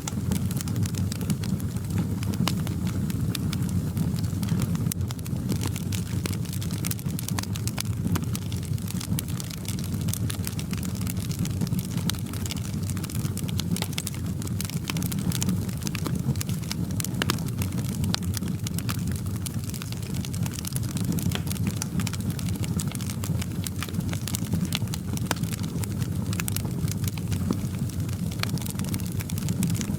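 Fireplace wood fire crackling, with a dense scatter of sharp pops and snaps over a steady low rumble of flames.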